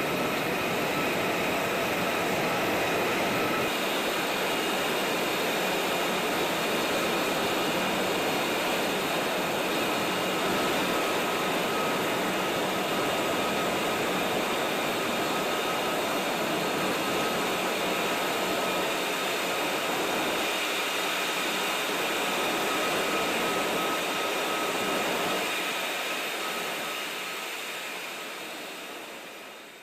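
F-35 fighter jet in flight, its Pratt & Whitney F135 engine running with a steady rushing noise and a high whine held through it, fading out over the last few seconds.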